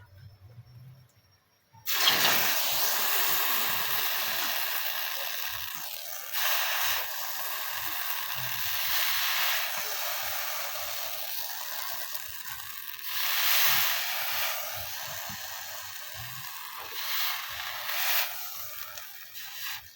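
Red-hot steel knife blade being quenched: a loud hissing sizzle that starts suddenly about two seconds in and carries on, swelling louder several times, as the blade is held and dipped in the quenching liquid.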